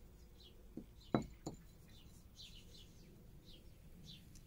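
Small birds chirping over and over in short falling notes, with three short knocks about a second in, the middle one the loudest.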